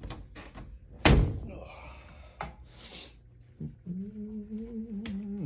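A loud slam about a second in, followed by softer clicks and rustling, then a person's voice holding one steady low note through the last second and a half.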